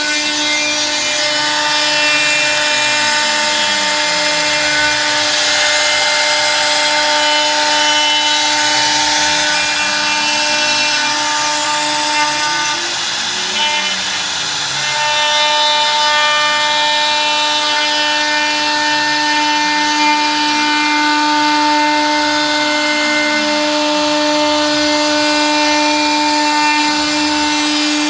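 CNC wood router spindle running with a steady whine while its cutter faces (surfaces) the top of a round wooden log slice, with a steady cutting hiss. A lower tone rises and falls every few seconds as the head travels back and forth. The sound eases briefly about halfway through.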